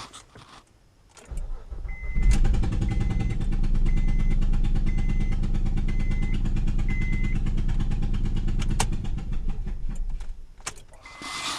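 2007 Honda Pilot's V6 started and running rough and choppy, a lawnmower-like sound, before it cuts off near the end. The engine is misfiring on five of its six cylinders, all except number 2. A dashboard chime beeps about once a second for several seconds after the start.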